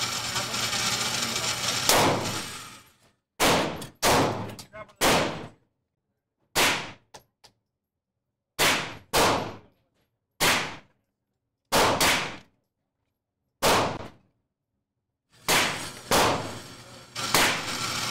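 Gunshots fired one at a time in an indoor shooting range, about fifteen at uneven intervals. Each is a sharp crack with a short echoing tail.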